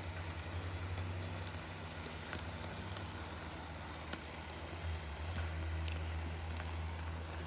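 Sauce-basted porterhouse steaks sizzling on a charcoal grill, with scattered small crackles, over a steady low rumble.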